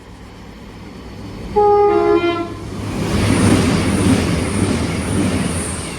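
A Class 221 Super Voyager diesel train sounds a two-note horn about a second and a half in, then passes at speed. The rush of the passing train builds, peaks and slowly fades, with a high whine over it.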